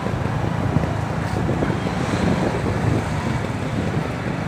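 Motorcycle engine running steadily while the bike is being ridden, with road traffic noise around it.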